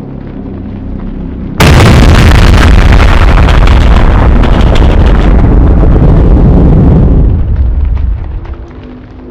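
A sudden, extremely loud blast of rushing noise, full of deep rumble and crackle, breaks in over a low rumble, holds at full force for about six seconds, then dies away.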